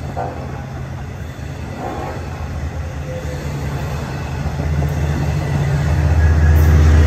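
Long Island Rail Road bilevel diesel passenger train rolling past, its steady low engine drone growing louder over the last few seconds.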